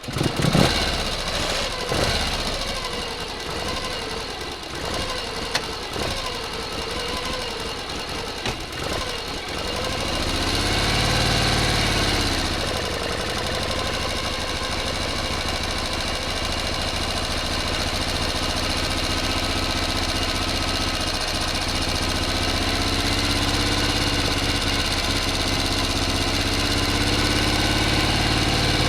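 A motor engine comes in abruptly and runs unevenly for several seconds. About ten seconds in it revs up and back down, then settles into a steady idle.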